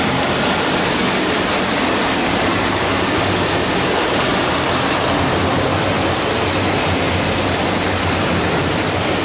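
Floodwater rushing through an overflowing dam spillway: a steady, loud rush of water with no let-up.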